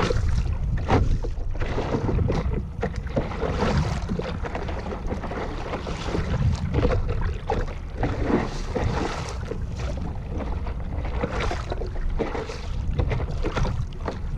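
Sea water splashing and slapping against a stand-up paddleboard as it is paddled, over a steady low rumble of wind on the microphone.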